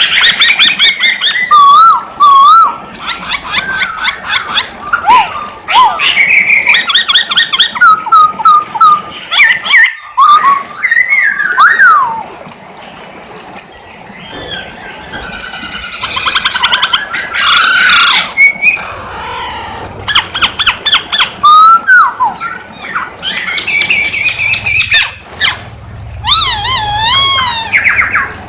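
Masked laughingthrush (poksay hongkong) singing loudly: a varied song of whistled phrases that glide up and down, mixed with rapid chattering runs. There is a brief lull about halfway through.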